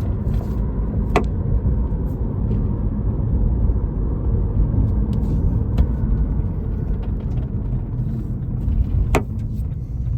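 Steady road rumble inside a moving car's cabin, with three short sharp clicks: about a second in, around the middle, and near the end. These are the intermittent noise behind the customer's complaint, which turned out to be a simple, cheap fix.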